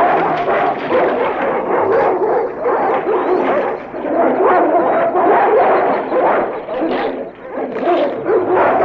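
Sound effect of dogs snarling, yelping and whimpering in a dense, overlapping clamour that goes on without a break.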